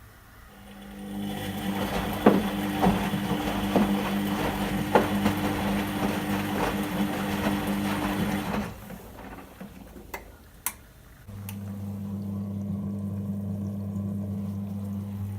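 Whirlpool washing machine on a 60° synthetics wash: the drum motor runs with a steady tone over swishing water and a few knocks, then stops abruptly about nine seconds in. Two sharp clicks follow, then a steady low hum starts and runs on.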